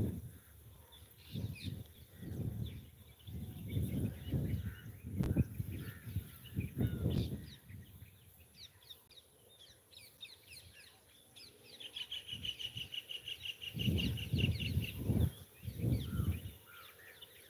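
Wild birds chirping, with a rapid pulsed trill for a few seconds after the middle, over repeated low muffled bursts that are louder than the birdsong.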